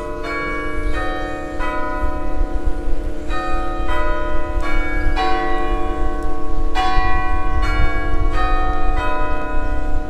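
Church tower bells ringing a run of single strokes in changing pitches, about one every three-quarters of a second, each note ringing on under the next.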